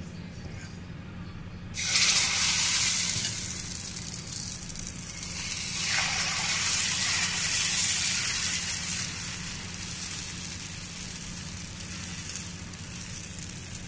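Foxtail millet and green gram dosa batter sizzling on a hot dosa tawa: a hiss starts suddenly about two seconds in as the batter hits the pan, grows louder again around six seconds in, then slowly eases.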